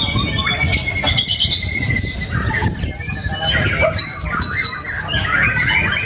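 Several white-rumped shamas singing at once, overlapping loud whistled phrases and rapid trills, over a steady low background rumble.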